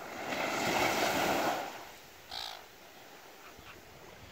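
A small wave breaks and washes up the sand, then a gull gives one short call about two seconds in.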